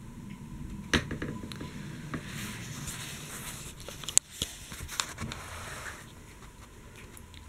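Handling noise from a handheld camera being moved close over a paper book page: a few sharp clicks, the loudest about a second in and just after four seconds, with rustling between about two and six seconds.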